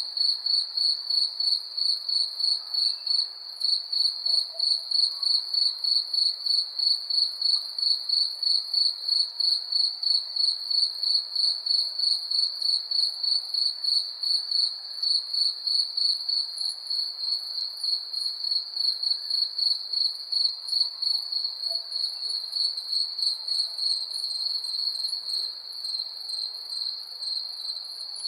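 Crickets chirping in a steady, even rhythm, about three chirps a second, with a fainter, higher and faster insect trill behind them.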